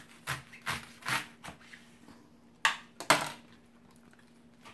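Chef's knife cutting through stacked bok choy leaves onto a wooden cutting board: a series of short cuts and knocks, about six in all, the loudest two a little over halfway through.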